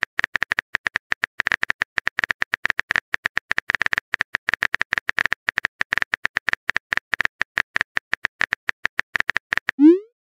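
Simulated phone keyboard clicks, a rapid, steady run of short ticks as a text message is typed out letter by letter. Near the end comes a short rising whoosh as the message is sent.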